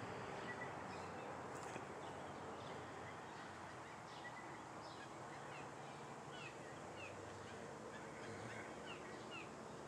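Faint outdoor ambience with small birds chirping at a distance: short, high, downward-sliding chirps, scattered at first and repeating about once or twice a second through the second half.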